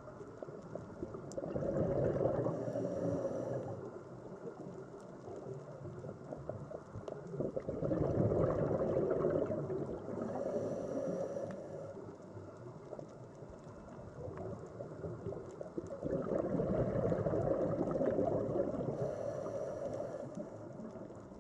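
Sea water gurgling and washing, swelling up three times about eight seconds apart.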